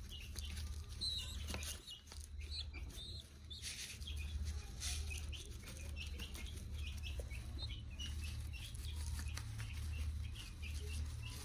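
Young birds peeping in short high calls, several a second, over a low steady hum, with a few brief rustles of plastic bottle and feathers as a pigeon squab is fed grain from a bottle.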